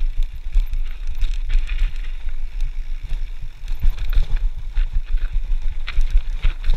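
Full-suspension mountain bike (Specialized Stumpjumper FSR) descending a rough dirt trail: wind buffeting the camera microphone with a constant uneven rumble, over which the bike's chain and frame rattle and knock at irregular moments.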